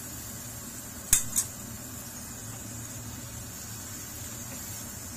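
Two sharp knocks against a frying pan about a second in, a quarter-second apart, as boiled pasta goes into the pan of sauce and is stirred, over a steady low background hum.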